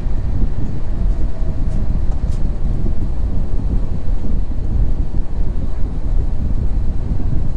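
Steady low rumble of an Airbus A350 heard from inside the passenger cabin: engine and airflow noise.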